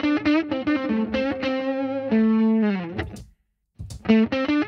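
Overdriven electric guitar playing a blues solo through delay: a run of quick notes, then a long held note that bends down, a short break, and the line picks up again near the end.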